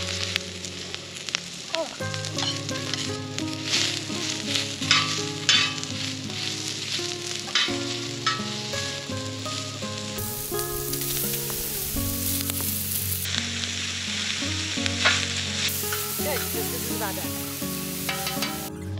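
Steak and vegetables for fajitas frying and sizzling, with stirring and scraping. The sizzle swells loudest about ten seconds in and again a few seconds before the end. Background guitar music plays underneath.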